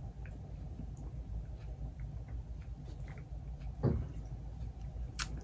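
Faint rustling and small taps of quilting fabric being handled, over a steady low hum, with a brief louder sound nearly four seconds in and a sharp click just after five seconds.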